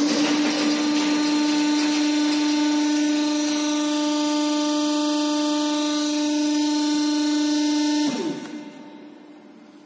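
Gas-cylinder homogenizer's drive running with a steady hum. About eight seconds in its stop button is pressed, and the hum winds down and fades away.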